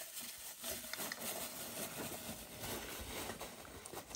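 Plastic bag and backpack fabric rustling as an item is pushed into a pocket of a military rucksack, with a few faint clicks from handling.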